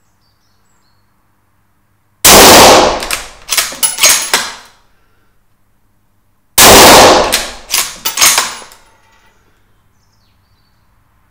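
Two shots from a Savage Model 110 Storm bolt-action rifle in 6.5 Creedmoor fitted with a sound moderator, about four seconds apart. Each loud report is followed by a string of sharp slaps dying away over about two seconds.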